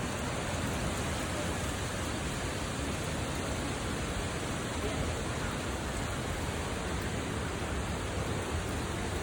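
Steady rushing noise of strong tropical-storm wind, with a low rumble of wind on the microphone.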